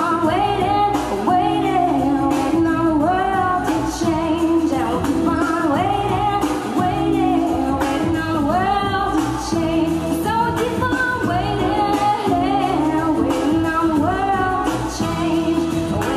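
A woman singing into a microphone, her voice gliding between held notes, over instrumental accompaniment with sustained chords and a bass line.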